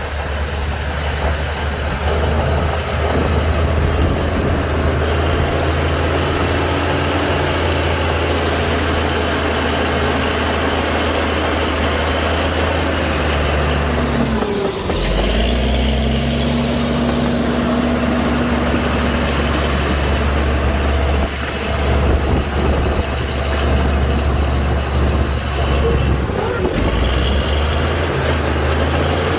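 Heavy earthmoving machine's diesel engine running steadily under load. Its pitch sags briefly about halfway through and again near the end, then recovers.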